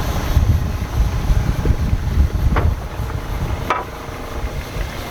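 Wind buffeting the microphone aboard a boat at sea, a rough, uneven low rumble, with two short sharp sounds a little past the middle.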